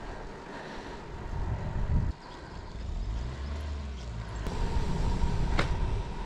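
Low engine rumble of a motor vehicle. It breaks off abruptly about two seconds in, then comes back steadily, with a single click near the end.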